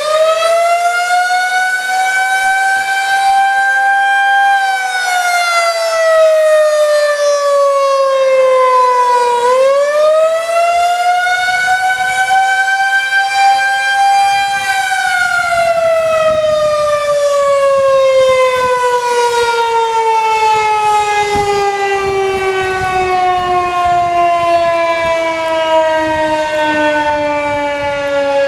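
Federal Signal 2001-130 outdoor warning siren sounding the attack signal, a loud wavering wail. Its pitch rises, holds, falls, and rises again, then sinks slowly through the second half.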